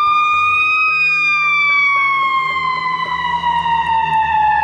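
Ambulance siren wailing over a low rumble. Its pitch climbs slowly for about a second, then falls in one long slow glide.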